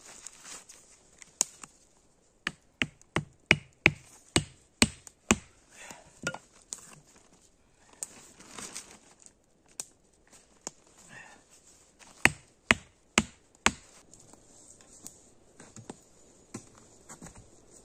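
Wooden stakes being hammered into the ground to peg out a tarp: a run of sharp wooden knocks about two a second, then four more after a pause filled with soft rustling.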